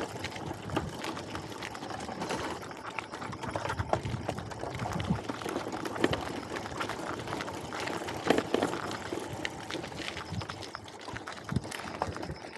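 A bicycle with a sidecar rolling along a road: a steady rumble with many small rattling clicks from the frame and sidecar, and a sharper knock about eight seconds in.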